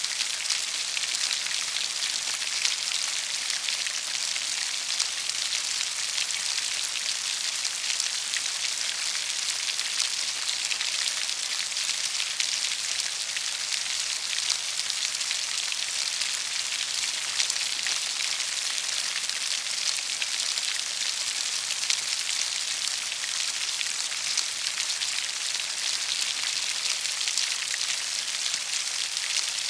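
Steady rain falling on a surface, an even hiss thick with fine drop patter, strongest in the high range, with no build or let-up.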